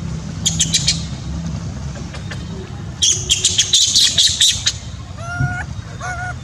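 Animal calls: bursts of quick, high chirps, then two short squawking calls about a second apart near the end.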